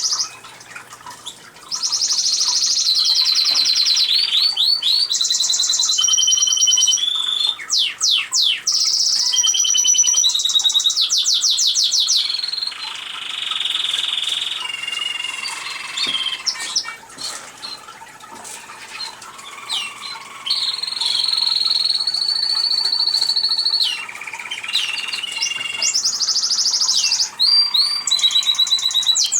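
Male canary singing a long, varied song: held whistled notes alternate with fast rattling trills, with a few short breaks.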